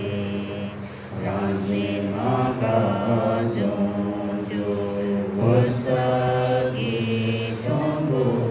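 Tibetan Buddhist mantra chanting, sung in long held notes that step in pitch every second or so over a steady low tone.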